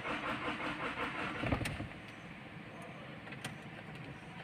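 Engine being cranked over by its starter without catching, a rough pulsing churn that stops about a second and a half in: the engine won't start.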